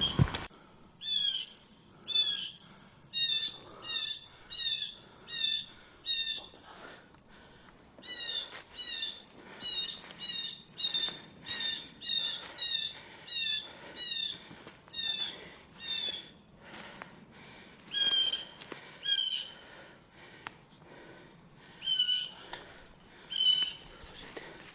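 Squirrel bark calls: a long run of short, sharp, chirping barks, about one and a half a second. The run pauses briefly about seven seconds in and thins to scattered single calls after about sixteen seconds. A thump sounds at the very start.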